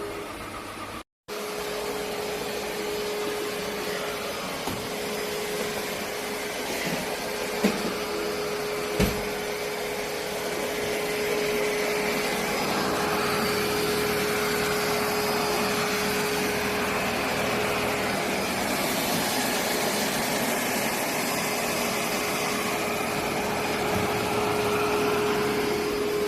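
ECOVACS T10 robot vacuum running: a steady whir of its suction motor with a constant hum, getting a little louder about halfway through, and a few light knocks.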